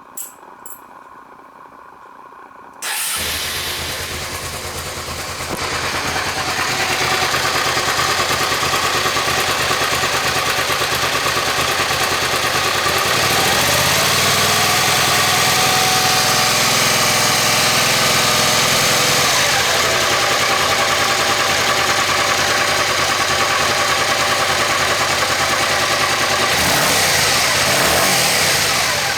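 Suzuki SV400's V-twin engine starting after a couple of small clicks, catching about three seconds in and then idling steadily, a little louder from about six seconds on.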